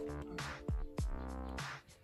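Background electronic music with a drum beat: repeated kick-drum hits over held synth tones.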